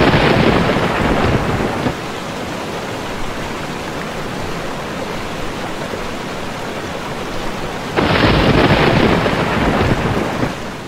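Thunderstorm: steady heavy rain with two long rolls of thunder, one at the start and one about eight seconds in, fading away at the very end.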